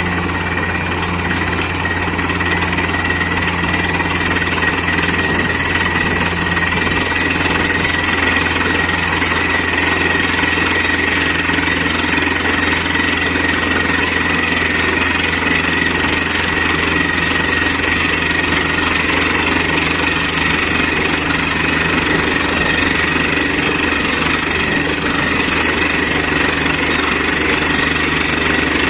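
Borewell drilling rig running steadily under load: a low engine drone with a dense rattling noise and a steady high whine. It builds up over about the first second, then holds level.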